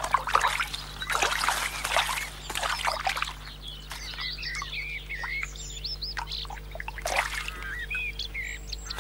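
Water trickling and splashing in a garden pond for the first few seconds, then small birds chirping repeatedly.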